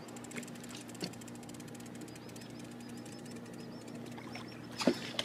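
Faint fishing reel ticking in quick light clicks, about six a second, for a second or so midway, as line is worn in on a bent rod, over a low steady hum; a sharper knock sounds near the end.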